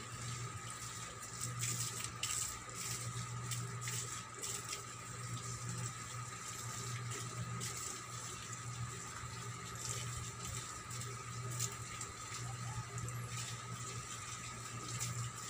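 Steady background hiss with a low hum and a faint high steady tone, dotted with a few faint clicks.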